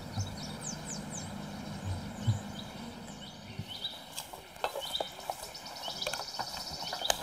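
Outdoor ambience of small birds chirping, many short high calls. A faint low hum, from honeybees at the hive, carries through the first two seconds, and scattered clicks and rustles come in the second half.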